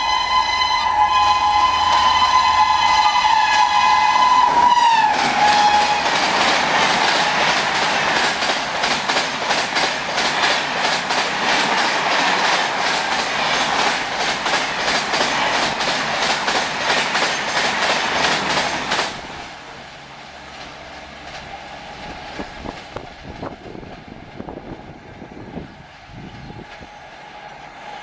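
WAP-7 electric locomotive's horn honking continuously as it approaches at speed, dropping in pitch as it passes about five seconds in. Then the coaches of the Rajdhani Express rush past with a rapid clickety-clack of wheels over the rail joints. That rushing cuts off suddenly about 19 seconds in, leaving a quieter rumble with scattered clicks.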